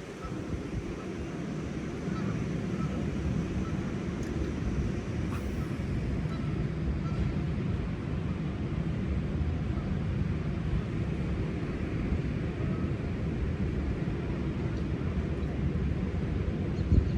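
Steady low rumble of wind buffeting the microphone, with a short bump near the end.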